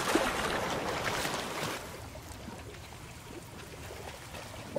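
Pool water splashing heavily as two swimmers thrash and grapple, dying down after about two seconds to quieter water sounds.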